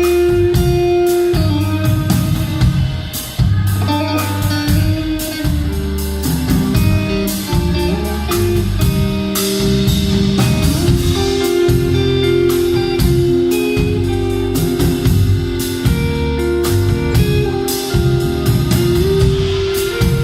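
Band playing: electric guitar over a low bass line and a drum kit.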